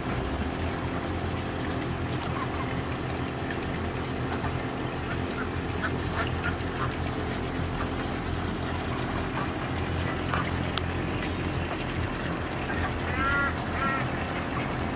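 Muscovy duck giving a few short calls around the middle and a longer rising-and-falling call near the end, over a steady low hum.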